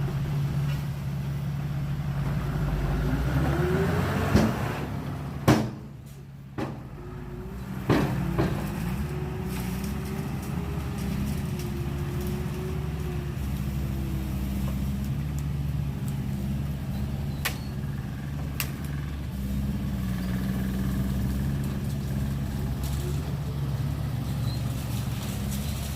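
Heavy diesel earthmoving machinery running steadily, with four sharp knocks between about four and eight seconds in.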